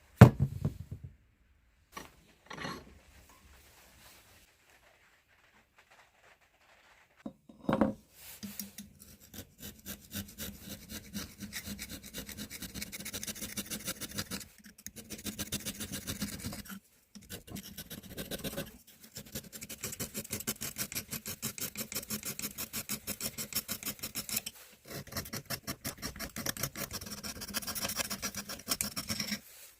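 Rust being scrubbed and rasped off a steel hammer head by hand: rapid, even back-and-forth strokes in runs of a few seconds with short pauses, starting about eight seconds in. A sharp knock comes right at the start, the loudest sound here.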